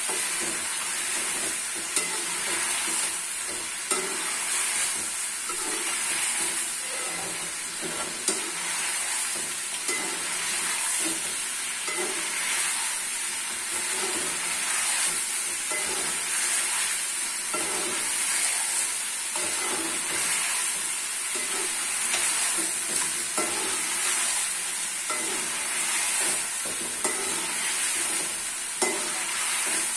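Chicken frying in oil in a pan, sizzling steadily while a spoon stirs it in regular strokes, with a few sharp knocks of the spoon against the pan. It is the bhuna stage, the chicken being browned before the potatoes go in.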